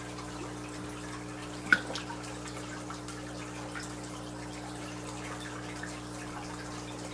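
Aquarium water dripping and trickling over a steady low electrical hum from the tank's equipment, with a single sharp tap about two seconds in.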